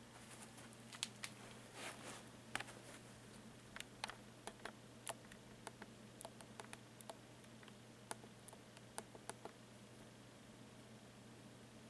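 Large plastic shopping bag crinkling and ticking as a kitten noses into it and moves against it: irregular sharp crackles, sometimes several a second, thinning out and stopping near the end.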